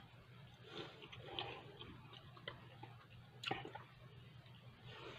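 A person chewing a mouthful of ham and bread, with wet mouth clicks and lip smacks at uneven intervals over a low steady hum.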